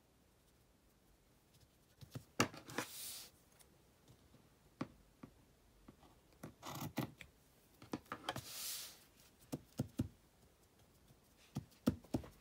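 Patterned paper and card being handled and slid across a tabletop: a few rustling swishes and scattered light taps and knocks, starting about two seconds in.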